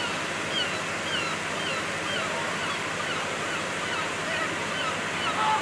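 Steady outdoor rushing noise on a rugby pitch, with faint short high chirps or distant calls repeating through it.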